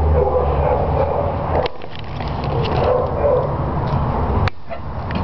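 Dogs barking in shelter kennels over a low rumble, with a sharp click about four and a half seconds in.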